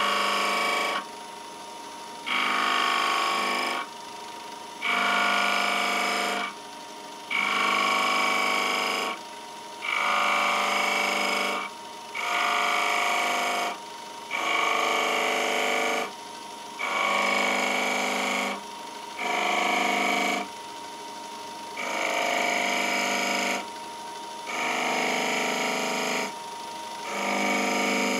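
Wood lathe running with a turning tool or abrasive worked against spinning pine in repeated even strokes, each about a second and a half long, with short pauses between them.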